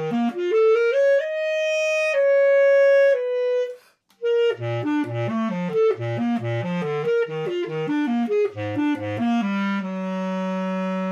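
Basset horn playing solo: a rising phrase onto a couple of held notes, a brief break about four seconds in, then a quick run that dips into the instrument's low register and settles on a long held low note near the end.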